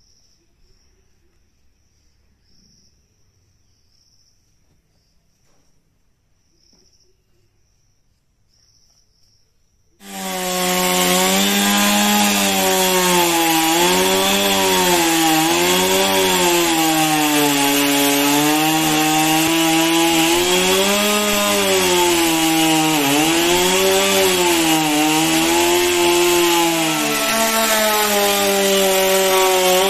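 Near silence at first, then about ten seconds in a two-stroke chainsaw cuts in abruptly at high revs and runs on, its pitch dipping and rising as the chain bites into a block of wood.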